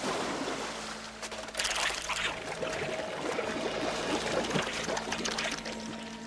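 Liquid pouring in a stream and splashing into a pool, with a crackling, trickling wash that grows louder about a second and a half in.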